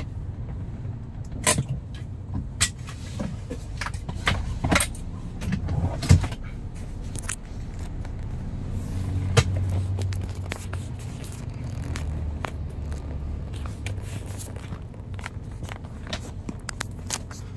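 Road vehicle running with a steady low rumble, with scattered clicks and knocks over it; the rumble swells about nine seconds in.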